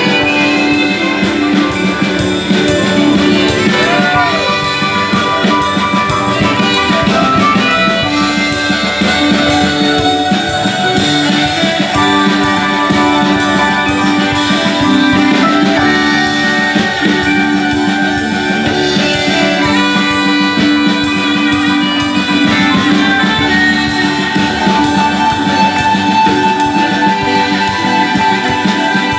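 A live rock band playing an instrumental passage, with a saxophone holding long notes over electric guitar, bass guitar and keyboard.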